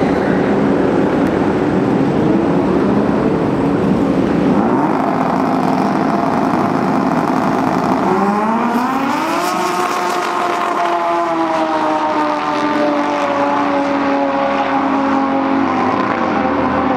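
Drag-racing snowmobile engine running at high revs. Its pitch climbs steeply about eight seconds in, then sinks slowly.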